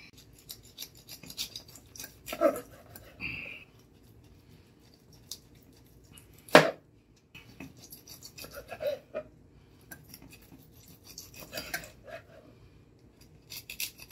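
A long carving knife sawing through a rolled porchetta's crusty skin and meat, in bursts of crunching, scraping strokes. There is a single sharp knock about halfway through.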